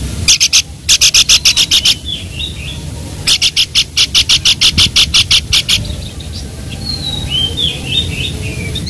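Babbler calling: two fast runs of loud, sharp notes, about six a second, each lasting about two seconds. Softer slurred whistles come between the runs and after them.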